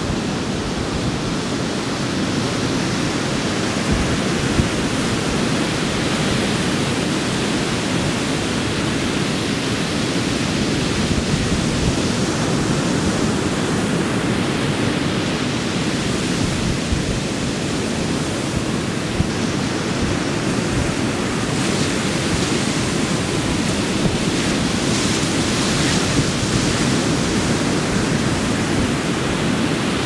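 Pacific Ocean surf breaking and washing up a sandy beach, a steady, even wash of wave noise.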